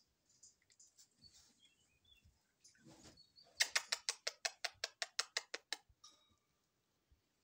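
A Belgian shepherd puppy of about four weeks gives a rapid run of about a dozen short, high, squeaky yips, roughly six a second, dying away after a couple of seconds. Faint rustling and small clicks of the puppies moving on their bedding come before it.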